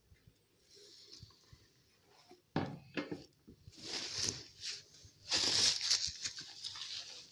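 Plastic bubble wrap being handled and pulled about: irregular crackling and rustling that starts about two and a half seconds in and is loudest a little past the middle.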